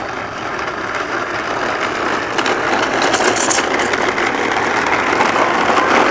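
Battery-powered toy bubble lawn mower running as it is pushed along, its motor and mechanism going steadily and growing louder over the few seconds.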